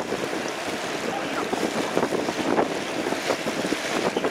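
Water rushing and splashing irregularly along a moving boat's hull, with wind buffeting the microphone.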